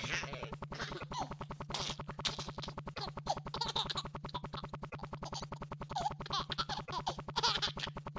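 A baby's short cooing and gurgling sounds, a few in a row, over a steady rapid pulsing hum of about seven pulses a second.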